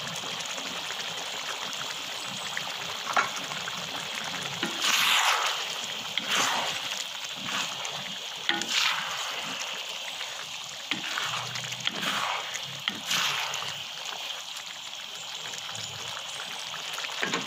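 Acar ikan pekasam sauce simmering in a wok with a steady bubbling hiss, stirred now and then by a wooden spatula, a few louder scraping strokes from about five seconds in.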